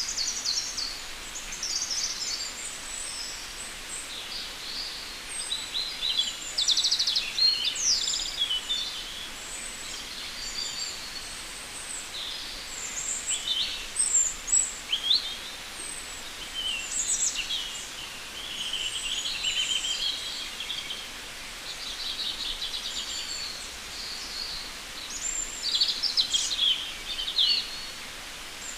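Several birds singing and calling at once: a busy mix of short high chirps, rapid trills and quick whistled glides, some overlapping, over a steady faint hiss.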